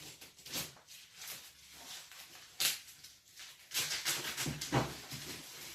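Packaging being cut and pulled open by hand with a pocketknife: scattered rustling and scraping of wrap and cardboard, a sharp crackle about two and a half seconds in, and a dense run of rustling near the end.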